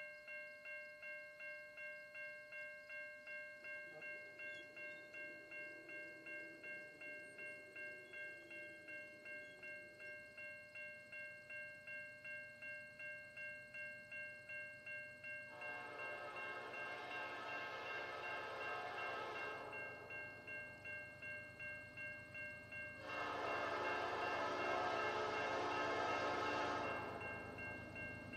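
Railway level-crossing bell ringing steadily at about two strokes a second. Over it, the lead diesel locomotive of an approaching freight train sounds its air horn in two long blasts of about four seconds each, the crossing signal. A low rumble of the train grows near the end.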